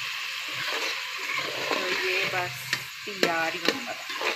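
Minced meat frying in oil in a metal pot, sizzling steadily while a steel spoon stirs it. In the second half the spoon scrapes and clicks against the pot several times. The keema is being browned until its water has dried off and the oil separates.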